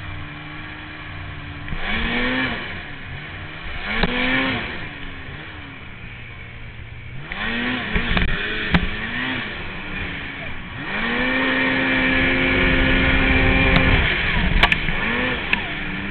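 Polaris 800 snowmobile's two-stroke twin engine revving in short throttle bursts about two, four and seven seconds in, then held at high revs for about three seconds before dropping back. A few sharp knocks come near the end.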